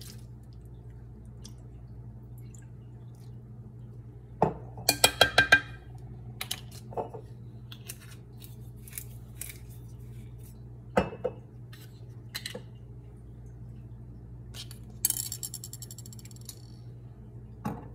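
Kitchen utensils and containers clinking and knocking on a counter, a quick run of about six loud clinks about five seconds in, scattered knocks after, and a short fast rattle near the end, over a steady low hum.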